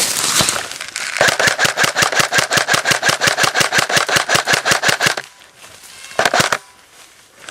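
Airsoft gun firing full-auto: a long burst of about four seconds at roughly eight shots a second, then a short burst about a second later.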